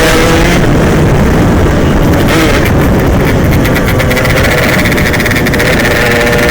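Yamaha RX-King's 135cc single-cylinder two-stroke engine running hard at speed, loud and steady, with heavy wind rush over the microphone.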